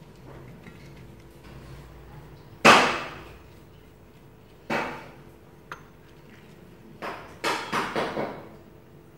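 Several sudden knocks and rustles as stiff sheets of tofu skin are handled and laid on a stainless steel tray. The loudest comes about two and a half seconds in, with a quick cluster near the end.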